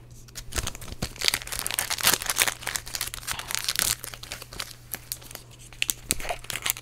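Foil Magic: The Gathering booster pack wrapper being torn open and crinkled in the hands: a run of irregular crackles and rips.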